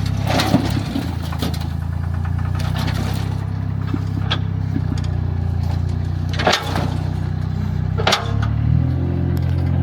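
An engine running steadily, with a few sharp knocks or clunks over it and a shift in its note near the end.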